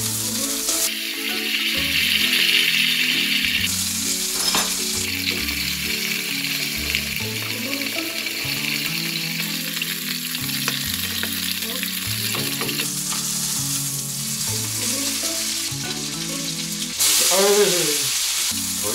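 Steak sizzling in hot olive oil with garlic and thyme in a frying pan, the oil being spooned over it as it is basted. Soft background music runs underneath, and a brief wavering tone sounds near the end.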